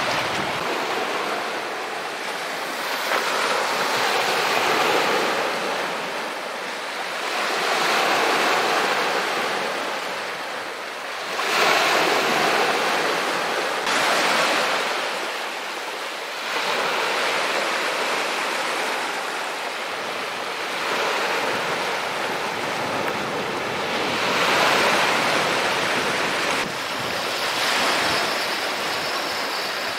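Sea waves breaking and washing over a stony shore, swelling and falling every few seconds.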